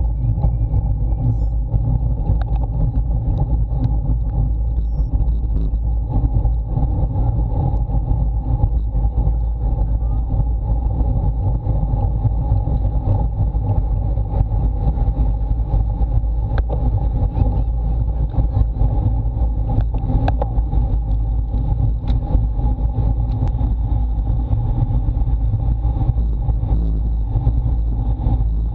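Steady, loud wind and road rumble on a bike-mounted action camera's microphone as a road bike rides at speed.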